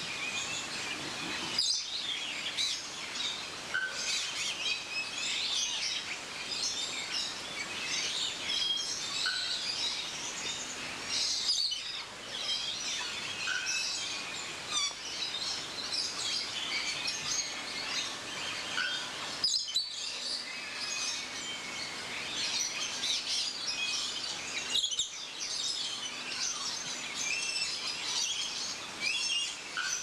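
Many birds chirping and twittering together in a dense chorus, with a short lower call repeated every few seconds and a few brief breaks in the sound.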